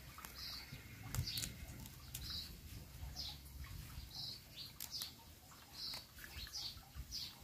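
A small bird chirping faintly, short high chirps about once a second, with a few crisp crackles of banana leaf being folded by hand.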